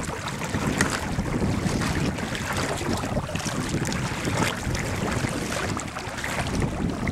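Wind buffeting the microphone in a steady low rumble, with small waves lapping and slapping against a kayak's hull on choppy water in scattered short splashes.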